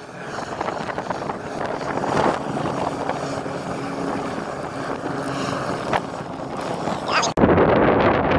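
Passenger hovercraft crossing open water: its propellers and fans give a steady drone with a faint low hum running through it. About seven seconds in it cuts off abruptly, replaced by wind buffeting the microphone.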